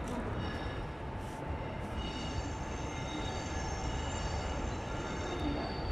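Electric locomotive hauling another locomotive into a station: a steady low rumble of wheels on rails, with steady high-pitched squealing tones above it.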